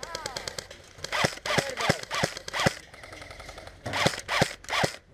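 Incoming airsoft gunfire: a quick full-auto burst, then sharp cracks two or three a second, with a short lull about halfway.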